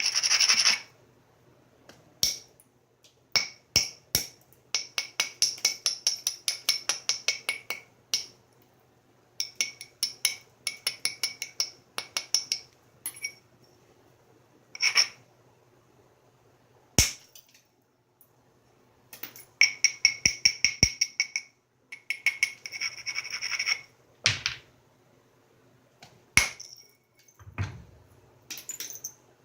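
Stone being knapped: quick runs of short scraping clicks against the stone's edge, about six a second, as the platforms are prepared. Single sharp clicks come between the runs, with a dull knock near the end.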